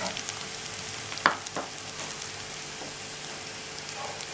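Shallots, black pepper, cumin and just-added curry leaves sizzling steadily in hot oil in a frying pan, with a sharp knock or scrape about a second in and a smaller one just after.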